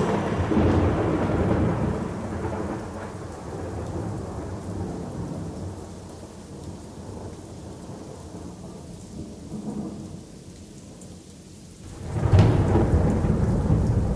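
Thunderstorm with steady rain: a roll of thunder slowly dies away, then a sudden loud thunderclap breaks about twelve seconds in and the rain carries on.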